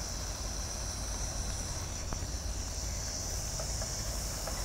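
Insects, crickets or the like, droning steadily on one high pitch, over a faint low hum, with a few faint ticks near the middle.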